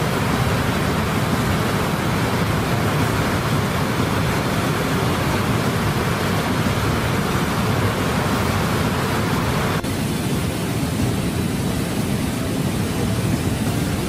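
Muddy floodwater rushing over a dam spillway crest, a steady dense rush of falling water, with a brief dip about ten seconds in.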